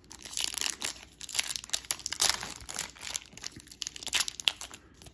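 Foil wrapper of a Topps Chrome baseball card pack crinkling in quick, irregular crackles as it is pulled open by hand.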